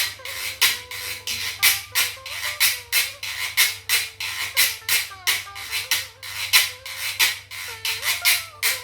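Guiro scraped with a stick in a steady rhythm, about two to three rasping strokes a second, with a faint melody underneath.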